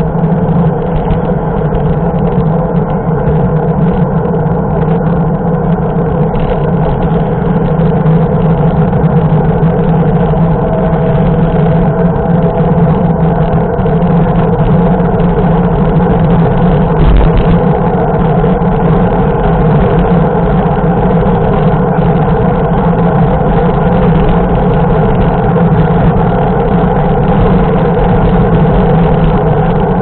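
Steady wind rush and tyre hum from a mountain bike riding on asphalt, picked up by a camera mounted on the bike, with cars passing in the next lane.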